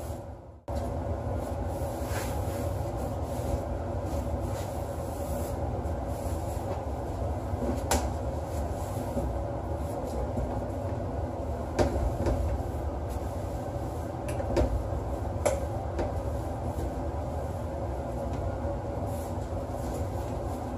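A steady low rumble with a faint hum, over which a few light knocks and clicks sound as metal-framed stools and their seats are handled and scrubbed in a shower stall.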